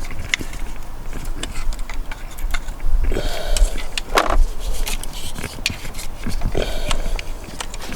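Metal wrench clicking and clattering while valve cover bolts are loosened on a 1.8 turbo four-cylinder engine, with a few short squeaks about three, four and six and a half seconds in.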